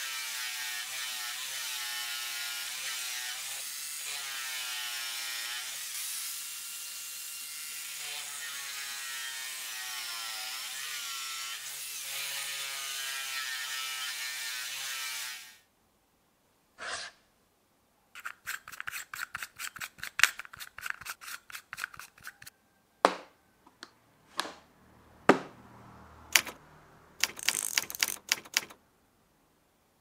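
Angle grinder with a sanding disc running against wood, its motor whine wavering in pitch as it bites into the block; it stops abruptly about halfway through. Then a manual typewriter's mechanism clicks: a fast run of ratchet clicks as the platen knob is turned, followed by several single sharp clicks.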